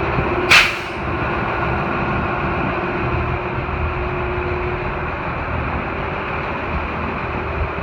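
Diesel engine of a school bus, an 8.3-litre Cummins, idling steadily with a low rumble. A short, loud burst of hiss comes about half a second in.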